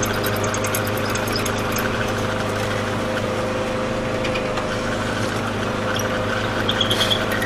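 Mortise machine's electric motor running steadily while cutting a mortise in a wooden door rail.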